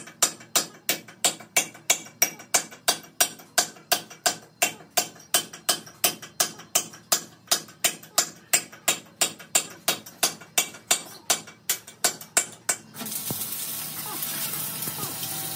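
Steady, evenly paced hammer blows on steel, about three strikes a second, each with a short metallic ring; about 13 seconds in they stop and a steady hiss takes over.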